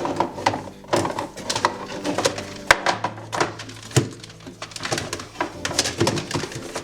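Rapid, irregular clatter of small hard objects being handled and knocked together, several clicks and knocks a second.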